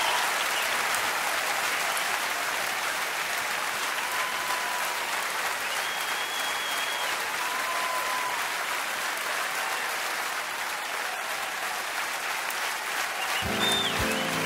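Large concert audience applauding steadily, with a few long whistles from the crowd. Near the end the band starts playing.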